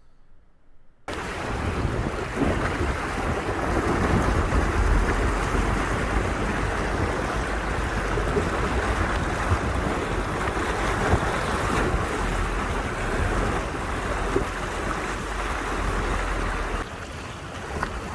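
Loud, steady rushing noise with a deep rumble, starting suddenly about a second in: wind buffeting the microphone of a camera on a 4x4 driving off-road.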